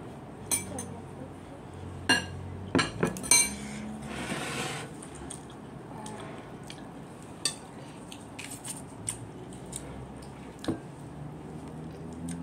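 Spoon clinking against a ceramic bowl during eating: a cluster of sharp, ringing clinks in the first few seconds, then a few scattered lighter taps.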